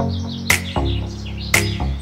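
Background music with a steady beat, a sharp strike about once a second over sustained pitched notes.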